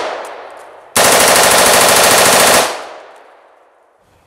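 AR-15-pattern rifle, fitted with a drop-in auto sear, firing one full-auto burst of about a second and a half that echoes for about a second afterwards. The ringing tail of a single shot fades out at the start.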